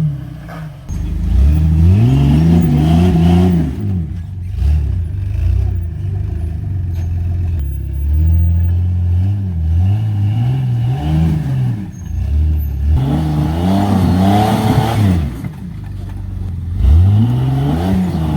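Jeep engine revving again and again under off-road driving, its pitch climbing and falling in several surges, the strongest about a second in, near the middle, and near the end.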